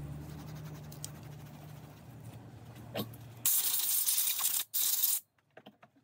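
Light scrubbing, steel wool on a carburetor's fuel inlet, over a low steady hum. About three and a half seconds in, a loud spray hiss comes in two bursts, together about a second and a half, as the carburetor is blown or sprayed clean.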